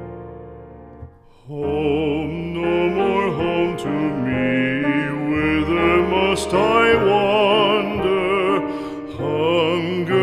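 Music: piano chords fade for about the first second, then a solo singer with a wide vibrato comes in over the accompaniment in a slow, classical-style song.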